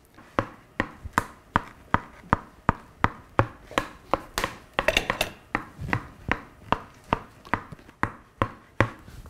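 Tennis ball bounced over and over on a wooden board held like a bat, each bounce a sharp wooden tap, about two to three a second, with a brief quicker flurry of taps around the middle.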